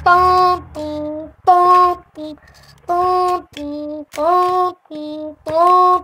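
A high voice singing a simple tune of held notes, about half a second each, alternating between a higher and a lower pitch.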